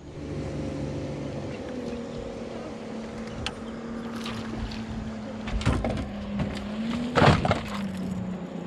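Electric trolling motor on a bass boat running with a steady hum; its pitch rises briefly about seven seconds in, then settles lower as the speed changes. Two louder knocking, rushing noises come about five and a half and seven seconds in.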